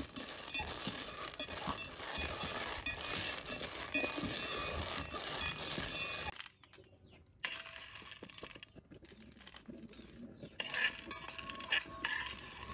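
Snail shells clattering against each other and the aluminium pot as they are stirred with wooden chopsticks in simmering broth. After a short break about six seconds in, there are quieter scattered taps, with a few louder clinks near the end.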